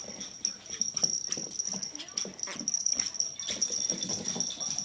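Small dogs play-fighting, making short, irregular yips and whimpers, with quick clicks of paws scrabbling on a hardwood floor.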